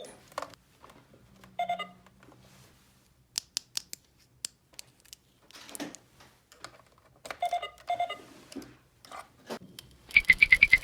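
Small plastic toy pieces being clicked, tapped and handled, with a few short chirps. About a second before the end a loud electronic toy sound starts: a fast, rapidly pulsing beep.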